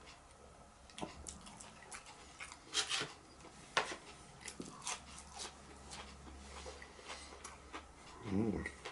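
Quiet close-up eating noises: scattered crunches and mouth clicks of someone chewing food, with a short low voiced sound near the end.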